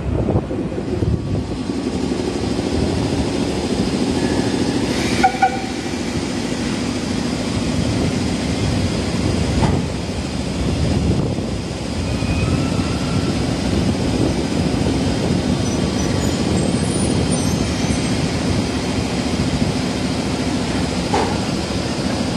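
EF65 electric locomotive creeping slowly along the track toward tank cars to couple up, with a steady low running rumble. There is a brief high squeak about five seconds in and a couple of light knocks later.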